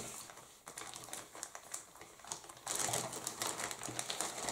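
Clear resealable plastic bag of grey plastic model-kit sprues crinkling and rustling as it is handled, with scattered small clicks, louder from about two-thirds of the way in.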